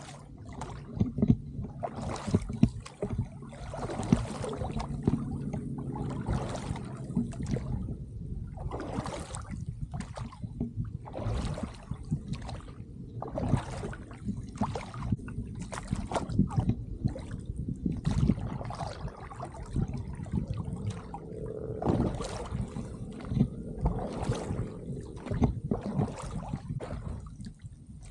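A duck punt being rowed with a pair of wooden oars: the blades splash in and out of the water in a steady stroke, about once every two seconds.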